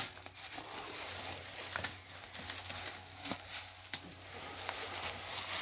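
Porcupines shuffling over dry leaf litter in a wire-mesh cage: a light rustling of leaves and quills with a few sharp clicks scattered through.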